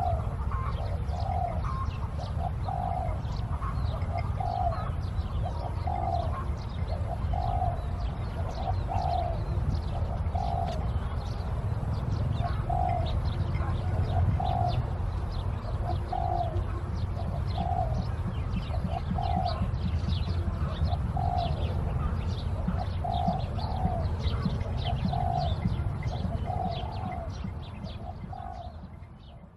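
Doves cooing in a long unbroken series of short notes, about one a second, with small birds chirping high above them over a steady low rumble. It fades out in the last few seconds.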